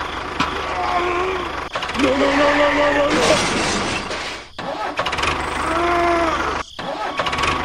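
Tractor engine running steadily with a low, even chug. Short pitched voice-like sounds come over it about one, two and six seconds in, and a brief hiss comes just after three seconds in.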